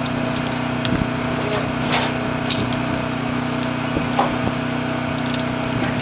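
A small engine running steadily with an even hum, with a few sharp knocks about one, two and four seconds in.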